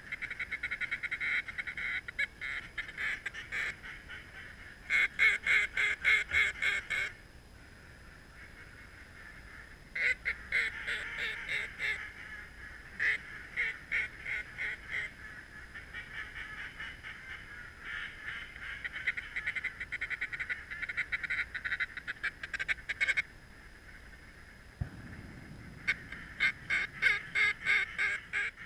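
Mallard-style quacking and rapid chatter in runs of several seconds, broken by short pauses. A low rushing sound comes in near the end.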